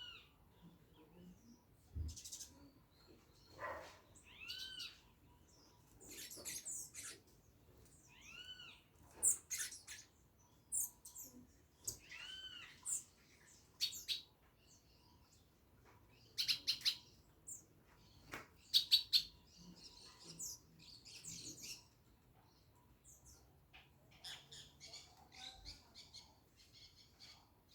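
Several birds calling: short arched whistled notes repeated every few seconds, mixed with brief high chirps and quick bursts of rapid chirping.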